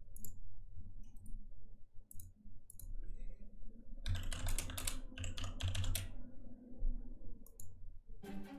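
Computer keyboard keys clicking, scattered taps at first and then a denser run of typing about four seconds in.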